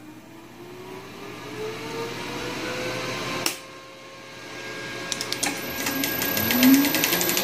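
Cinemeccanica Victoria 5 35mm film projector starting up: motors spin up with rising whines, a sharp switch click cuts in about three and a half seconds in, then a second run-up leads into the mechanism's rapid, even clatter near the end.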